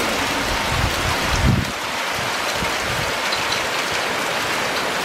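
Heavy downpour: rain falling hard and steadily, a dense even hiss. Some low rumbling comes in the first second and a half.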